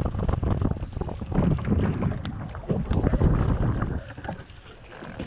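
Wind buffeting the microphone in gusts on an open fishing boat, a heavy low rumble with scattered small knocks, easing off about four seconds in.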